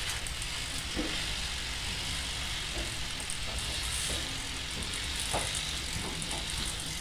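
Steady ambient background noise with a few faint clicks, as of a small plastic object being handled.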